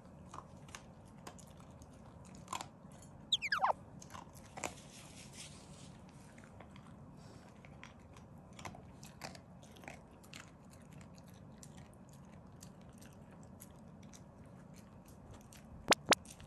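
Black Shiba Inu eating, with many small wet chewing and crunching clicks. A brief falling squeak comes about three seconds in, and two sharp clicks, the loudest sounds, come near the end.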